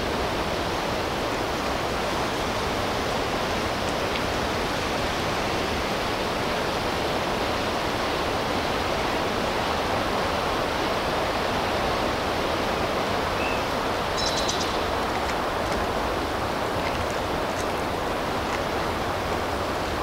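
Steady, even rushing noise outdoors, with a few faint high chirps about three quarters of the way through.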